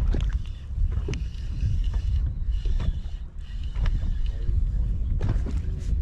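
Wind buffeting the microphone as a fluctuating low rumble, with scattered light clicks and knocks.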